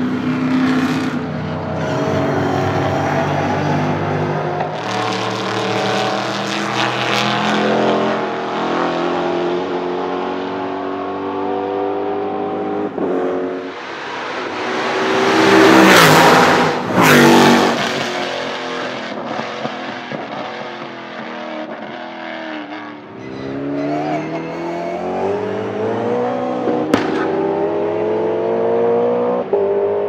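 V8 touring race cars at full throttle, the engine note climbing through the gears with short dips at each upshift. About halfway through, a car passes close by and its pitch falls as it goes away. Then another car accelerates up through the gears, with a single sharp crack near the end.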